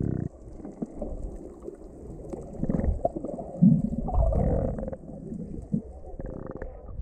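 Muffled underwater noise from a camera below the surface: irregular low rumbles and gurgles of moving water, with a louder swell about halfway through.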